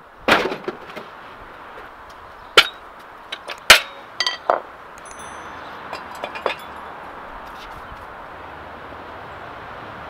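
Metal tools and steel jack stands being set down and handled on paving slabs: a run of sharp clinks and knocks in the first half, the loudest near four seconds in, then a brief high ding about five seconds in and a few faint clicks.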